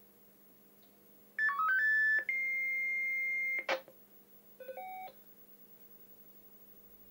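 Ericsson C702 radio sounding CCIR selective-call tones: a quick run of short tones stepping in pitch, then one long steady high tone that ends in a short burst of noise. A few short beeps at different pitches follow about a second later.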